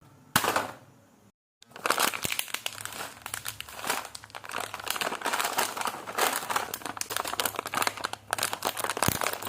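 Plastic chip packet crinkling as it is handled, a dense rapid crackle. A brief crinkle comes first, then a moment of dead silence a little over a second in, and after that the crinkling runs on without a break.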